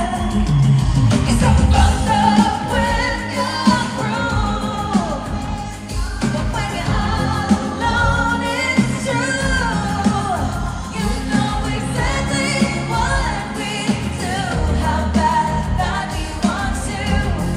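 Live pop-rock concert music: a female lead vocalist singing a melodic line over a full band with a steady driving beat, recorded from the audience in a large venue.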